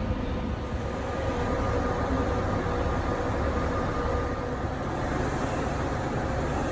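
Coach bus idling: a steady low engine rumble with a faint steady hum above it.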